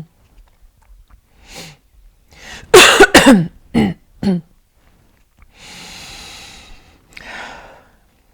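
A person coughing: a fit of several harsh coughs in quick succession, loudest near the middle, then two long breaths.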